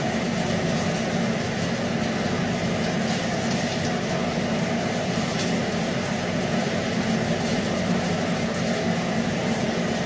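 Arc welding on schedule 40 steel pipe at a gate valve: a steady, continuous hiss over a low hum, with no break.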